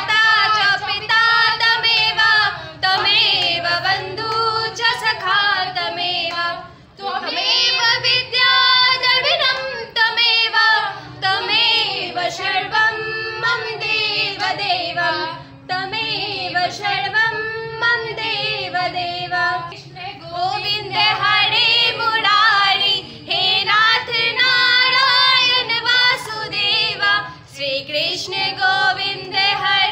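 Several young women singing a Hindu devotional hymn together in Hindi.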